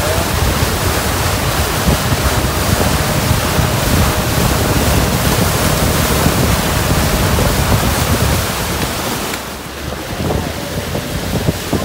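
Water rushing and spraying around a water-skier towed close behind a boat, with wind buffeting the microphone. About nine and a half seconds in it turns quieter and duller.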